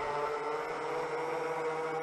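Quadcopter motors and 7-inch propellers running steadily at high throttle: a whirring hum with a high motor whine.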